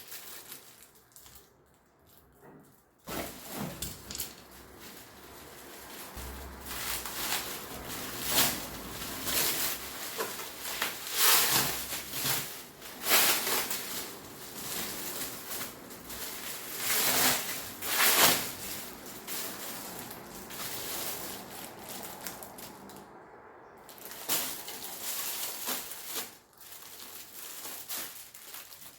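Handling noise: irregular rustling and crinkling of packaging, with a few knocks. It starts about three seconds in and comes in uneven bursts.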